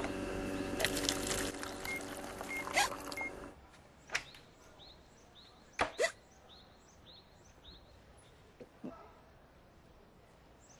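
A held musical chord with a few chime notes for about three and a half seconds, then a quiet background with faint repeating bird chirps. Over that come short, sudden hiccups from a girl, about four, six and nine seconds in, the one near six seconds doubled.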